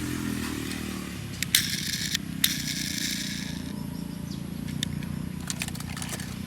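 Handling noise: a few sharp clicks and a couple of seconds of rustling, over a steady low hum.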